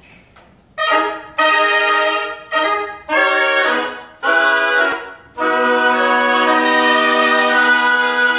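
Music played by a wind ensemble: after a brief quiet start, five short chords that each fade, then a long held chord from about five seconds in.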